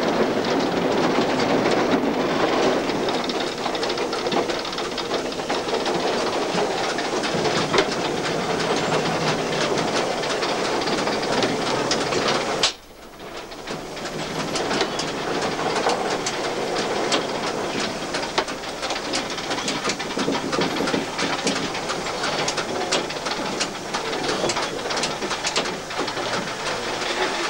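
Škoda-built class 434.1 2-8-0 steam locomotive under way, heard from its cab: a steady hiss of steam with constant rattling and clanking from the cab and running gear. The sound drops out abruptly about halfway through, then builds back up.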